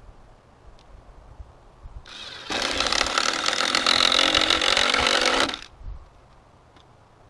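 A cordless drill-driver runs in one burst of about three seconds, driving into a wooden board. It starts about two seconds in and stops abruptly.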